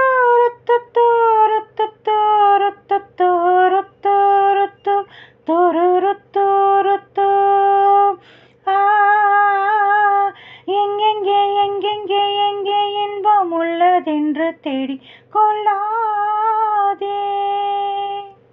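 A woman singing a melody in short phrases without clear words, over a faint steady drone.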